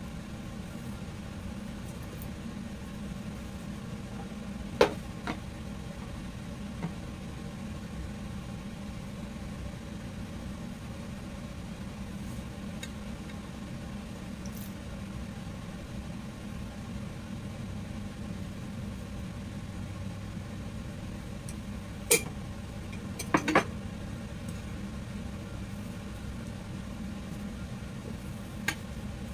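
Steady low hum, with a few sharp clinks against a stainless steel bowl as a pork chop is dredged in cornstarch: one about five seconds in, a cluster a little past the middle, and one near the end.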